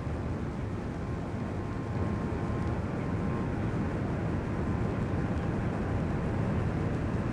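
Giant wind tunnel's fan running at speed: a steady, deep rush of air that grows a little louder about two seconds in.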